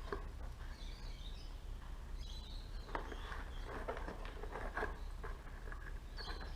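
Faint, scattered light clicks and taps of hand tools and small metal parts as the carburetor is worked off a 1970 Honda SL100, over a low steady hum.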